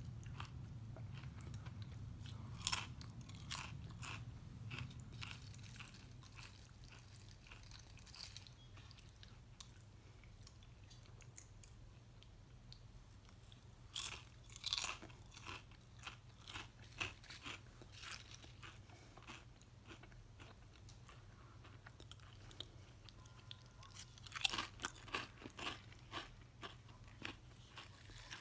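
Close-up crunching of Quest protein potato chips being bitten and chewed, in three bouts of sharp crackly crunches with quieter stretches between.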